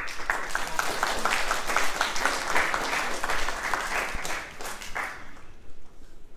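Audience applause, many people clapping, which fades and dies out about five seconds in.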